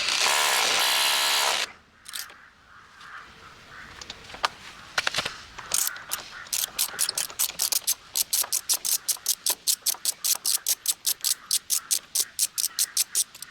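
A loud noisy burst lasting under two seconds, then scattered clicks building into a long run of rapid, evenly spaced mechanical clicks, about five a second, like a ratchet being worked.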